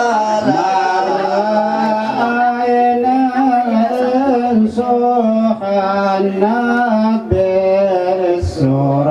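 A voice singing a slow, ornamented chant-like melody with long held notes that bend and waver in pitch.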